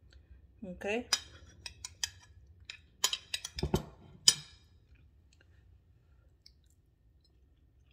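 Cutlery clicking and clinking against a plate a dozen or so times as a bite is taken up, the sharpest click about four seconds in.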